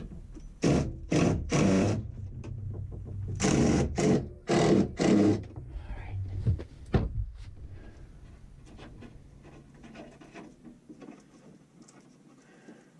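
Power drill running in short bursts, driving hardware into attic wood: three quick bursts about a second in, then three more a few seconds later, with a couple of knocks after them before it falls to faint handling noise.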